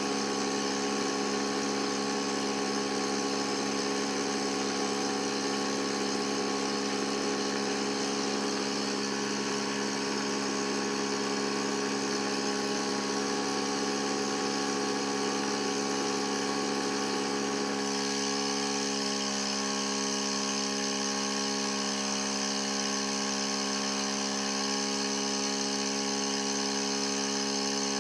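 Thermal-barrier-coating test rig running: a steady mechanical hum with several held tones, under the hiss of cooling air and small gas burner flames heating the test specimens. About 18 seconds in, the lower rushing drops away and a higher hiss comes up, as the automatic cycle switches the burners off while the cooling air stays on.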